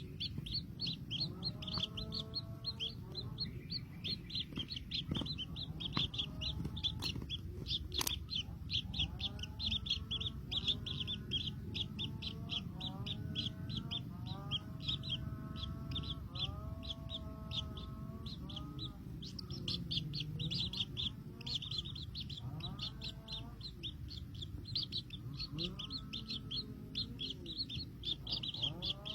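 Young birds chirping in a rapid, unbroken stream of high peeps, with lower sliding calls now and then.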